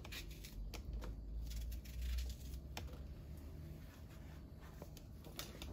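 A knife slicing raw eggplant held in the hand over a stainless steel bowl: a few faint, scattered cuts and clicks in the first three seconds, with a low background hum throughout.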